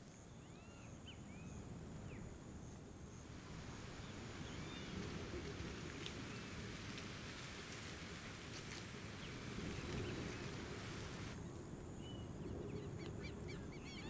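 Quiet savanna ambience: a steady high-pitched insect drone with small repeated bird chirps. From about three seconds in to about eleven seconds, a rougher hiss rises over it, then drops away again.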